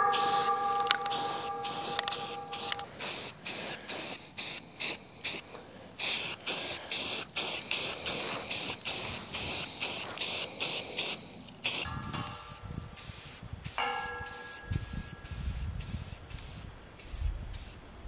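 Aerosol spray can of primer being sprayed onto a steel railing panel in rapid short bursts, two or three hisses a second.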